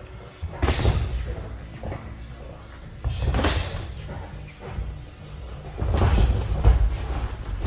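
Boxing gloves landing in sparring: a few sharp smacks of punches on gloves and padded headgear, with low thuds of footwork on the ring canvas.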